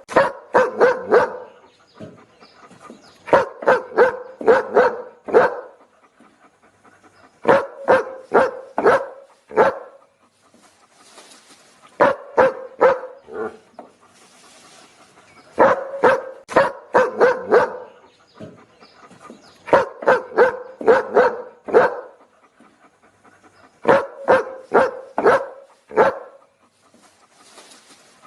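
A dog barking in repeated bouts of five or six quick barks, one bout about every four seconds, the same pattern looping over and over.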